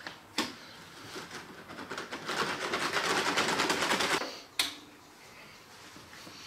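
Gloved hand stirring the white electrolysis bath mixture in a plastic tray: a fast, rhythmic scratching for about two seconds, with a sharp knock before it and another just after.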